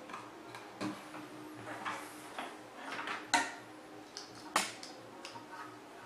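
Light rustling of wires with scattered small clicks of plastic plug-in terminal connectors being handled, and two sharper clicks about three and a half and four and a half seconds in.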